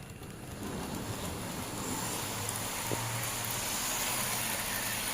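Model trains running on the track: a steady whirring rumble of motors and wheels that grows louder about a second in, with one faint click midway.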